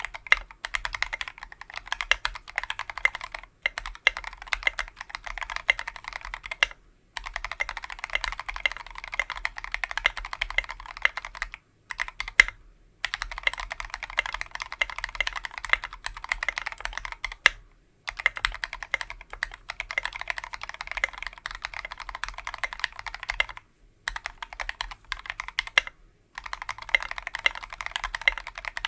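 Typing on a custom 60% mechanical keyboard with lubed Tealios V2 linear switches on a brass plate, capped with SA-profile keycaps: fast runs of keystrokes broken by short pauses every few seconds.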